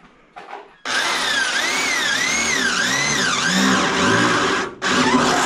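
Electric hand drill boring into metal, its motor whine rising and falling in pitch as the bit bites. It starts about a second in, stops briefly near the end and starts again.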